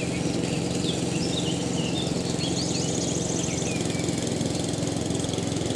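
A small engine running at a steady, even speed, a constant drone, with birds chirping briefly over it in the middle.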